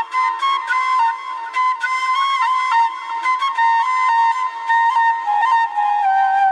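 Background music: a flute playing a melody, stepping from note to note and sinking slightly lower near the end.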